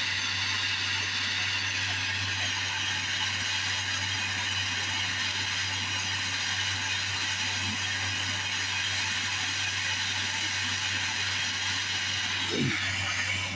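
Jewelry torch flame hissing steadily while small metal pieces are melted into balls on a brazing board; it cuts off sharply near the end.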